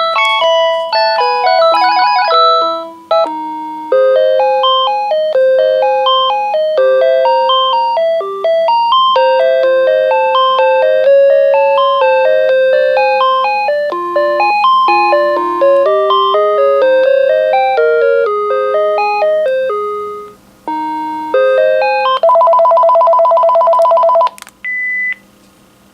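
Panasonic KX-TG5210 cordless phone handset playing its built-in electronic melody ringtones, note by note, with short breaks about three seconds in and again near twenty seconds. Near the end it gives a rapid two-tone warbling ring for about two seconds, then two short beeps.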